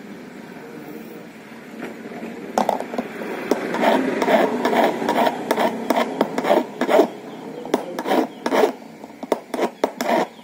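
Small hand file rasping across a metal key blank, cutting a new key by hand: a faint rasp at first, then loud repeated strokes from about two and a half seconds in, coming faster near the end.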